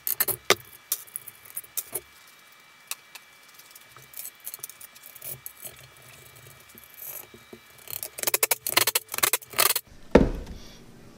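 Small metal clinks and rattles of nuts being handled and threaded onto carriage bolts in a plywood box, with a quick flurry of clicks near the end. A single heavy wooden thump follows, as the box is moved on the bench.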